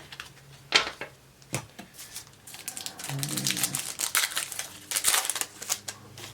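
Trading cards being handled on a table: a couple of sharp taps, then a few seconds of crisp rustling and sliding as cards are shuffled through.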